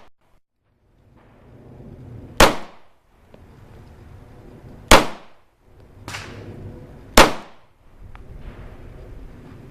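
Glock 26 9 mm subcompact pistol firing three shots, spaced about two and a half seconds apart. A fainter bang comes between the second and third.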